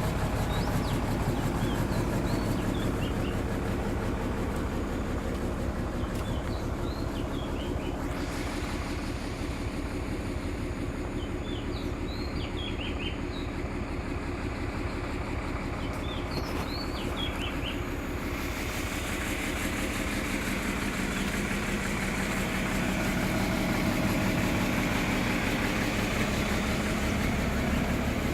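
Excavator's diesel engine idling steadily, a little louder in the last third, with a few short high bird chirps over it.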